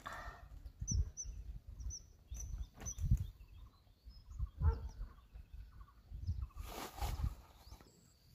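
Small birds chirping, short high calls coming every half second or so, over irregular low rumbling. A brief rustle about seven seconds in.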